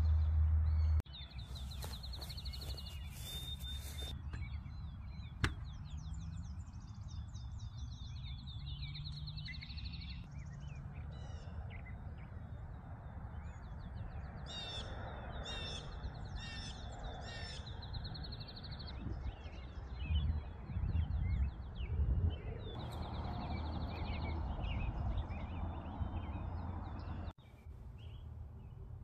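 Small songbirds singing, with repeated fast trills and short chirps, over a low wind rumble on the microphone that gusts louder near the middle.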